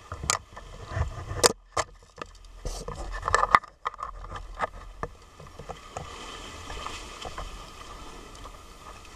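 Surf washing over a rocky reef edge, heard through an underwater camera housing, with a run of sharp knocks and clicks from the housing and dive gear being jostled during the first four seconds or so, then a steadier wash of water.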